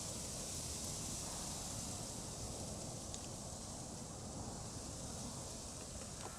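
Steady rushing of shallow brook water running over gravel, with a few faint ticks near the end.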